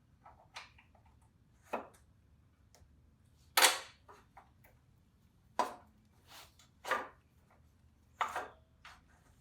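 A scatter of about six sharp knocks and clanks from tools and the new rear shock being worked into place on an ATV's rear suspension. The loudest comes about three and a half seconds in.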